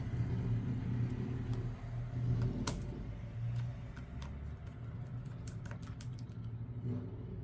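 Small, scattered clicks and taps of a precision screwdriver and tiny screws being driven back into a smartphone's frame. A steady low hum runs underneath.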